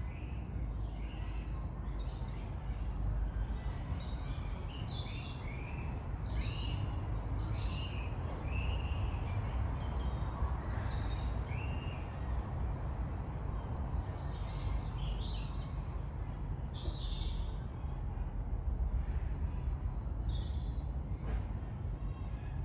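Several birds calling and chirping in a wood, short calls scattered throughout, over a steady low rumble of traffic from a nearby high street.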